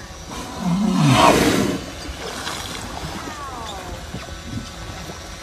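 Humpback whale blowing at the surface: one loud rushing exhalation about a second in, lasting about a second, over a low steady background.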